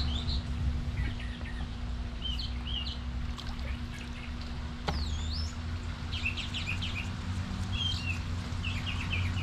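Small birds chirping in short calls, one giving a quick falling-then-rising whistle about five seconds in, over a steady low hum.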